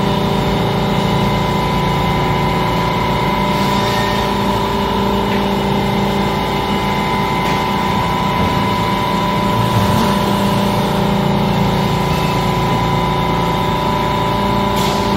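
DECKEL MAHO DMU 50 evolution vertical machining center running under power, its spindle drive giving a steady low hum with a constant higher whine over it.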